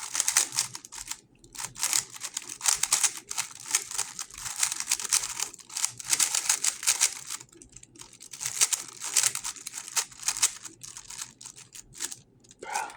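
GAN 11 M Pro magnetic 3x3 speed cube being turned rapidly: fast runs of plastic clicking and clattering, with short lulls about seven and a half and eleven seconds in.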